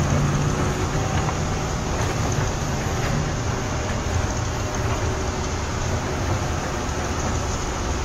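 Steady low engine hum under an even rushing noise, like passing road traffic.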